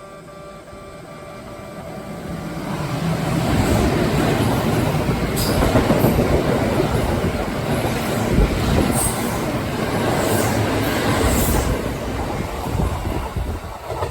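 Kintetsu electric train running through the station at speed. Its rushing noise builds over the first few seconds, holds, then eases near the end, with sharp clacks of the wheels crossing rail joints.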